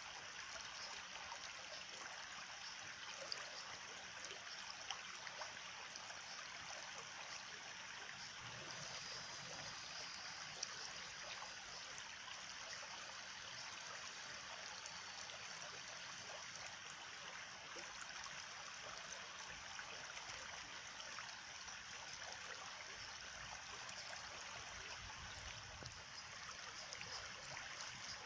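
A small stream trickling and gurgling steadily, with faint little splashes and ticks of water.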